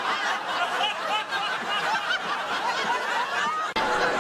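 Studio audience laughing, many voices together, with a brief break near the end.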